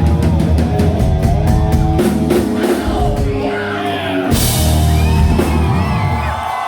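A live rock band ends a song. A rapid drum fill gives way to held guitar and bass chords, a cymbal crash comes about four seconds in, and the band stops near the end. Crowd yells and whistles rise over the music.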